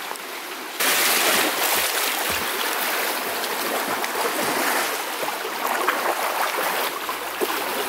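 Small wind-driven lake waves lapping and splashing against shoreline rocks, a steady wash that gets suddenly louder about a second in.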